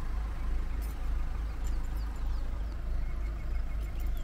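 Safari game-drive vehicle's engine idling with a steady low rumble.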